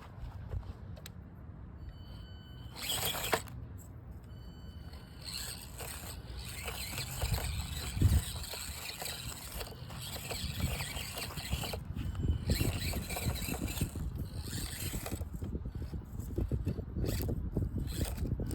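SCX24 Deadbolt micro RC crawler's small electric motor whining in stop-and-go bursts as it crawls over rocks, with tyres and chassis scraping on stone and a knock about eight seconds in.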